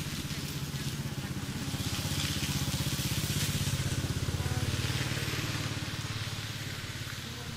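A small engine running with a steady rapid low putter, growing louder over the first few seconds and then fading.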